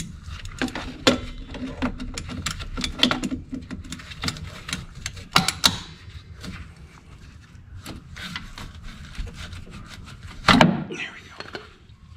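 Sheet-metal engine tin on a VW Bay Window bus's air-cooled engine being pried and worked loose with pliers: a run of irregular metal clicks, clinks and scrapes, with a few louder knocks.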